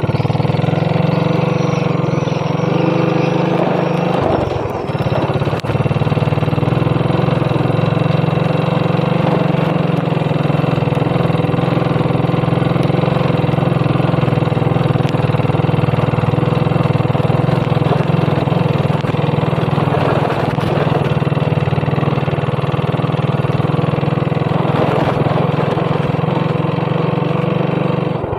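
Motorcycle engine running steadily while riding, with a constant low rumble and a steady hum. It dips briefly about four to five seconds in.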